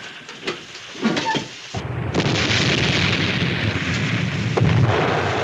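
Submarine ballast tank being blown with compressed air to surface: a sudden loud rushing roar that starts about two seconds in and runs on steadily.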